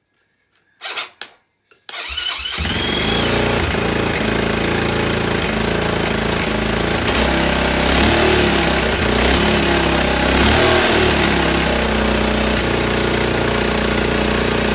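Freshly rebuilt Bashan/Jianshe 250 cc single-cylinder four-stroke ATV engine, started by bridging the starter relay: a couple of short bursts of cranking, then it catches about two seconds in and runs steadily, picking up slightly twice. This is its first start after new rings, valve seals, tappets, camshaft and valve timing.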